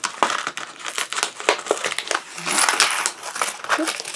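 Clear plastic blister pack being pried open and its printed card backing pulled away: a run of crackling and crinkling plastic, busiest about halfway through.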